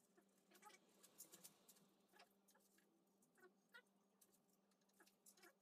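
Near silence: room tone with a steady faint low hum and a few scattered faint clicks and ticks.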